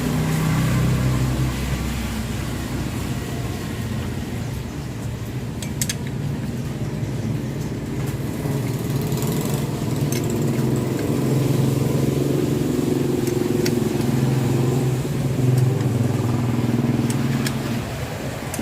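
An engine idling steadily, with a few light metallic clicks.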